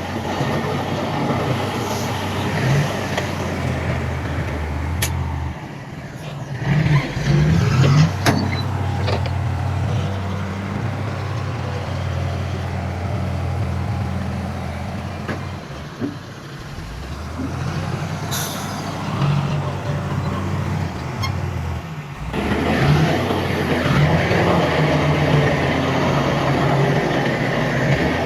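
Diesel engines of heavy earthmoving machinery, bulldozer and dump trucks, running and working, with the engine pitch rising and falling and a few sharp clanks.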